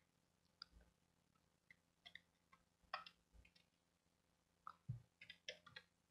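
Faint clicks of a computer mouse and keyboard: scattered single clicks, then a quick run of several key presses near the end.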